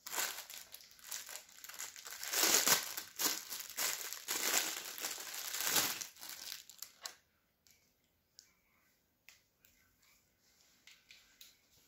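Black costume cloak fabric rustling as it is handled and pulled on over the body. The rustling swells twice, stops about seven seconds in, and a few faint clicks follow.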